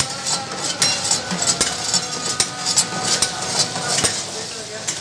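Lamb pieces sizzling in hot oil in a karahi while a metal ladle stirs them, scraping and clinking against the pan in irregular strokes about twice a second.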